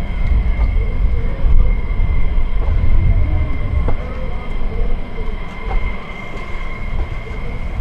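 Jet engines of taxiing General Dynamics F-16 Fighting Falcons, a loud steady rumble with a high whine held on one pitch.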